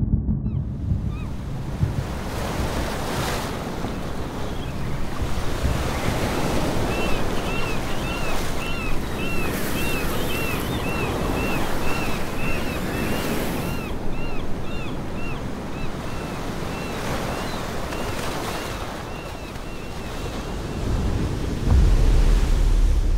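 Small waves breaking and washing up on a sandy shore, with wind on the microphone. Through the middle a run of short high chirps repeats about twice a second, and a low wind rumble swells up near the end.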